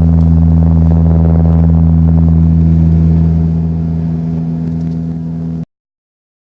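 Saab twin-turboprop airliner's propellers and engines droning in steady low tones, heard from inside the cabin. The drone eases off about three and a half seconds in, then the sound cuts off abruptly near the end.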